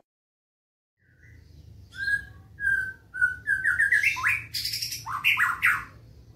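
White-rumped shama (black-tailed murai batu) singing: a few clear whistled notes, then a quickening run of rising notes and fast, harsh high-pitched phrases.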